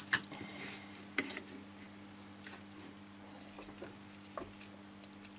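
A few light clicks and taps from a circuit board being handled and shifted on the bench. The sharpest come right at the start and about a second in, over a faint steady hum.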